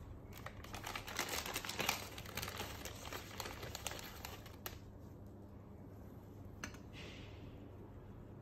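Crinkling and rapid light clicks of dry spaghetti being handled for a few seconds. Near the end comes a brief rustle as a hand feeds more strands through the Thermomix TM6 lid onto its scale.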